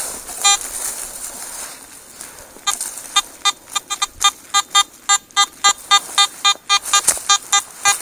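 Metal detector sounding one short beep, then a quick run of identical short beeps, about four a second, as its coil is passed back and forth over a dug hole. It is giving a repeated signal on a small non-ferrous target.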